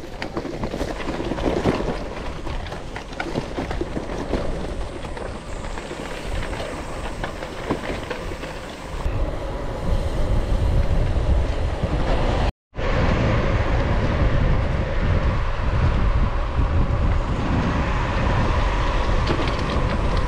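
Riding noise of a gravel bike heard from a handlebar-mounted camera: a rattling clatter of bike and bags over a rough dirt track, changing about nine seconds in to a steadier rolling noise with heavy low wind buffeting on the microphone. The sound breaks off for a moment a little past halfway.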